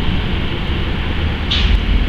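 Steady low outdoor rumble on a street, with a short hiss about one and a half seconds in.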